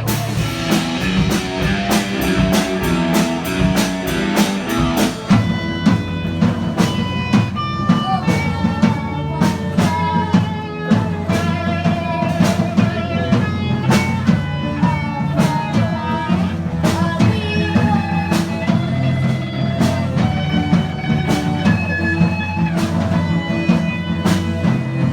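Rock music: guitar and drum kit playing with a steady beat.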